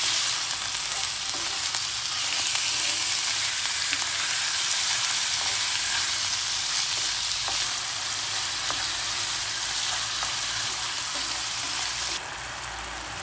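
Diced chicken breast sizzling in hot olive oil in a nonstick pan, stirred with a wooden spoon that gives faint scrapes and taps against the pan. The sizzle is steady and drops a little quieter about a second before the end.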